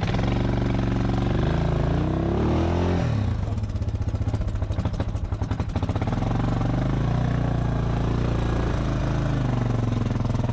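ATV engine revving to pull out of a muddy spot, its pitch rising and falling about two to three seconds in, then running steadily under load as the machine climbs the dirt trail.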